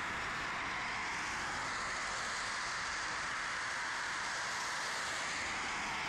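Steady hiss of road traffic, with no distinct calls or knocks standing out.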